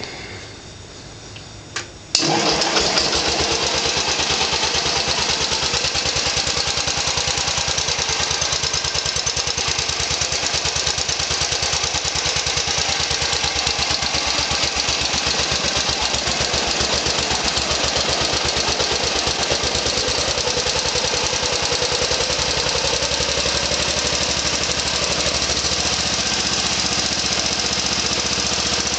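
Simplicity 7010 garden tractor's 10 hp Briggs & Stratton single-cylinder engine starting about two seconds in and then running steadily, tested after its carburettor was cleaned and adjusted.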